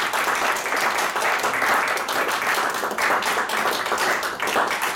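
A small audience applauding, many hands clapping steadily together.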